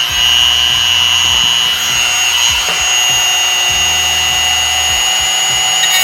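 Dremel-type rotary tool with a cut-off disc running at speed, a steady high whine, as it cuts through a metal belt buckle.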